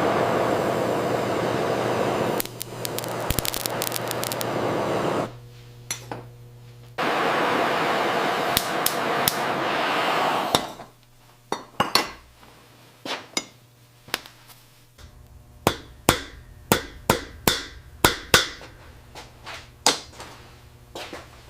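A steady rushing noise that breaks off sharply twice, then a run of about fifteen sharp metallic taps, irregular and roughly two a second, like light hammer blows on small metal pieces.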